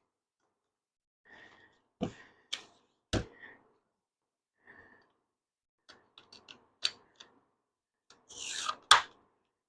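Scattered knocks and clicks of cedar fence-picket boards and hand tools being handled on a workbench: a few sharper knocks about two to three seconds in, a run of small clicks later, and a short rush ending in a louder knock near the end.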